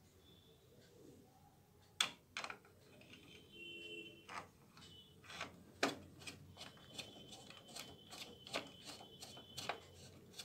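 Screwdriver driving a screw to fix the drum unit in a Kyocera TASKalfa copier: a run of faint, sharp clicks of metal and plastic, coming faster, about three a second, in the second half.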